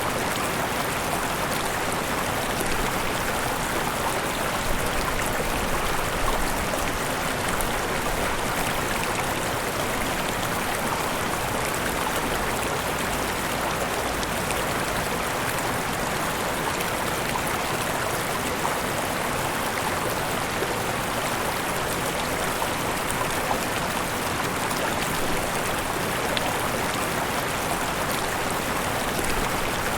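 Mountain river running over small waterfalls: a steady, unbroken rush of water.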